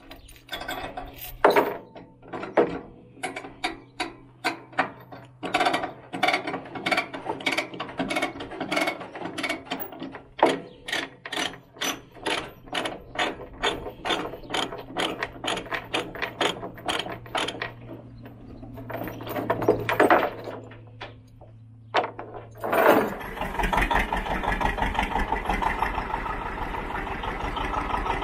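Steel ratchet chain binder being cranked on a flatbed trailer to loosen the tie-down chain on a tractor: a long run of sharp metal clicks, about two or three a second, with short pauses. About 23 seconds in, a vintage John Deere tractor engine is running.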